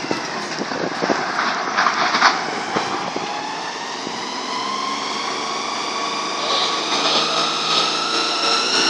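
Terex TA30 articulated dump truck running and driving up, its engine and drivetrain giving a whine that rises slowly in pitch, with scattered knocks and rattles in the first few seconds.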